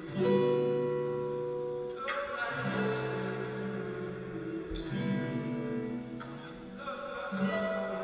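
Recorded instrumental music led by plucked strings. A new chord is struck about every two and a half seconds and then held.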